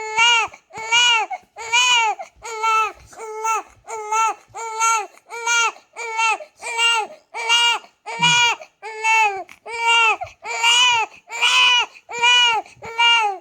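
Four-week-old newborn crying in a steady rhythm: short, loud wails a little faster than one a second, each rising and falling in pitch. The crying is the baby's demand for more milk during a feed.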